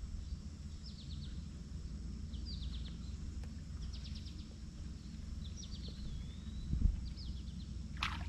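Steady low rumble of high, fast-flowing river water, with a small bird calling in about five short bursts of quick chirps. A sharp click comes near the end.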